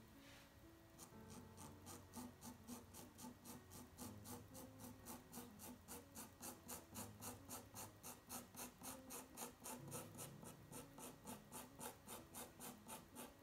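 Pencil scratching on toned paper in quick, even hatching strokes, about four a second, starting about a second in, over soft background music.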